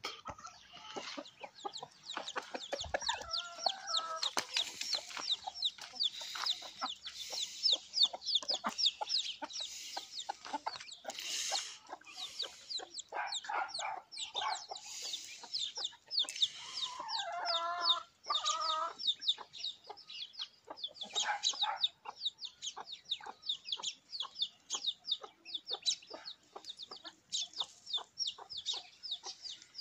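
Chicks peeping rapidly and continuously in short high falling notes, with hens clucking now and then, a few times louder and lower.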